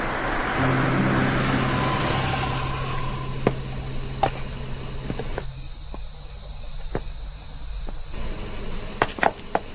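A car driving up and pulling to a stop. Its engine and tyre noise swell over the first couple of seconds and settle to a low steady hum, and a few sharp clicks and knocks come near the end.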